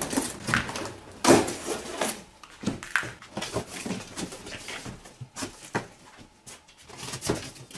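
Cardboard bicycle shipping box being unpacked by hand. The strapping comes off and the cardboard flaps are pulled open and handled, making a string of irregular scrapes, rustles and knocks.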